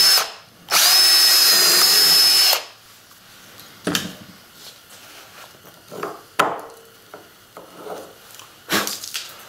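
Cordless drill boring through a clear polycarbonate plate into a wooden board, step-drilling a bolt hole with a steady high whine. It stops just after the start and runs again for about two seconds. Afterwards come a few light knocks and rubbing as the drill is set down and the chips are brushed away.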